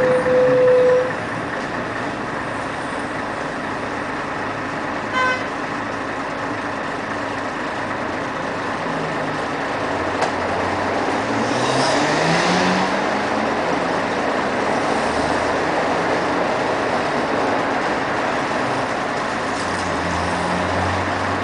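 Inside a 1996 Scania CN113CLL city bus, its 11-litre diesel engine running. A loud steady beep lasts about a second at the start, and a short beep comes about five seconds in. Around halfway the engine note rises for a few seconds, with a burst of hiss.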